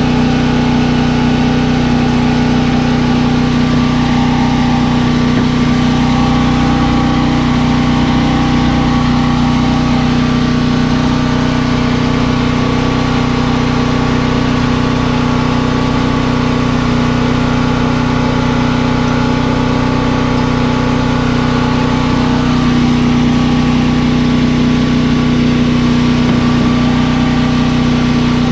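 An engine running steadily at idle, an even, unchanging drone.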